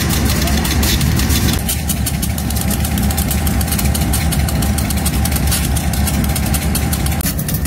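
Pakistan Railways diesel-electric locomotive's engine idling steadily with a deep rumble. A steady whine runs on top from about two seconds in and stops near the end.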